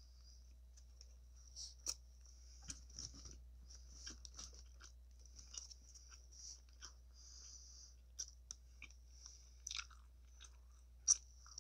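A person chewing a bite of gyro wrap: soft, irregular mouth clicks and crunches, with one louder click near the end.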